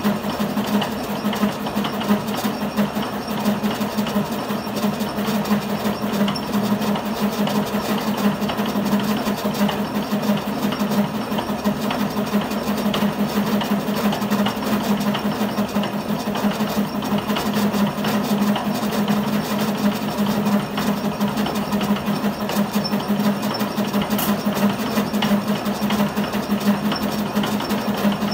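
Metal lathe running steadily while a thread tap spinning in the chuck hobs worm-gear teeth into a free-turning gear blank: a steady hum with a fast, even rattle of the cut.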